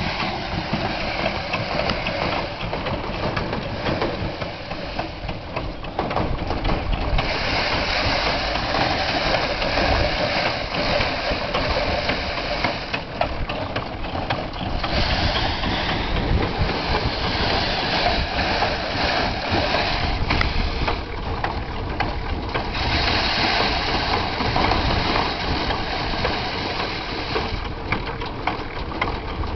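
Foot-pedal rice thresher running: its spinning toothed drum whirs and rattles steadily as bundles of rice stalks are held against it to strip off the grain, with a rushing noise that grows louder in spells, first about seven seconds in.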